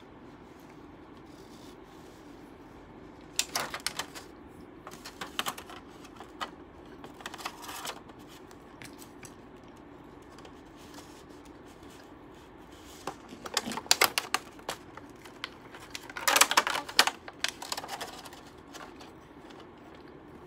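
Clear plastic clamshell takeaway container being handled, its lid pressed and shut, giving crackling clicks in several short bursts, the loudest about two-thirds of the way through.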